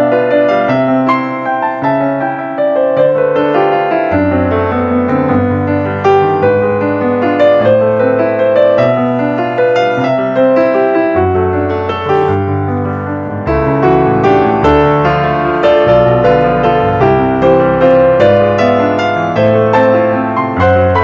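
Background piano music: a steady run of notes over held bass notes.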